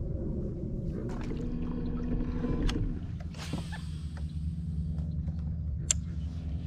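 Fishing rod cast from a small bass boat: a brief rushing swish about three and a half seconds in, with handling knocks and a sharp click near the end, over a steady low hum.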